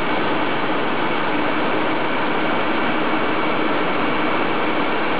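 Rebuilt Winkler+Dunnebier 624 handkerchief converting line with Senning 525 and 507 machines running. It makes a loud, even, unbroken machine noise with a faint steady hum.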